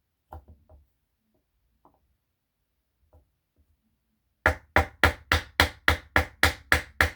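Hammer striking a block held over a Floyd Rose mounting stud, driving the stud into the guitar body: a few faint taps, then about ten quick, even blows, roughly three to four a second.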